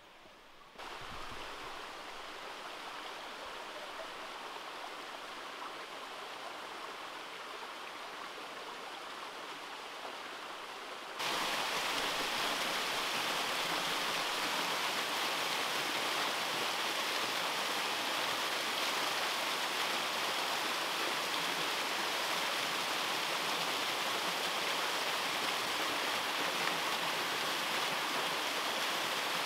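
Small waterfall cascading over rock into a pool: steady rushing water that starts about a second in and turns suddenly louder about eleven seconds in.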